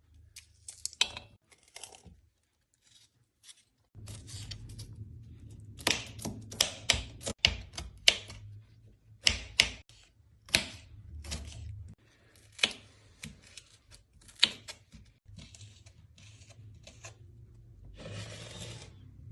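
Green pea pods being snapped and split open by hand: a run of irregular sharp snaps and clicks, with a low hum underneath from about four seconds in and a short hiss near the end.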